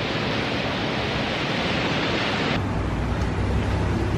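Steady rush of ocean surf breaking on a sandy beach. It cuts off abruptly about two and a half seconds in, giving way to a quieter low steady rumble.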